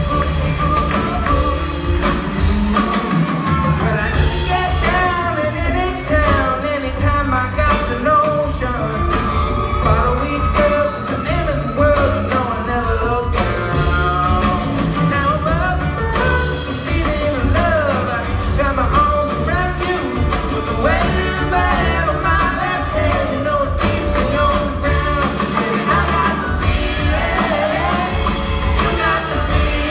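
A live band playing a song with a female lead vocal, over drum kit, upright bass, keyboards and electric guitar, with the hall's echo.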